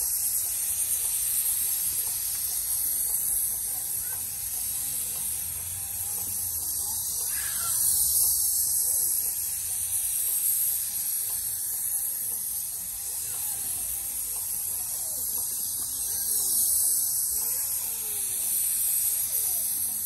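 Airless paint spray gun hissing steadily as it sprays paint, a continuous high-pitched hiss with a faint low hum underneath.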